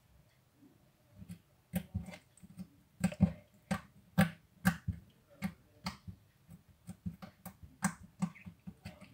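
Homemade glue slime being folded and squeezed between the fingers, giving short sharp clicks and pops, about two or three a second.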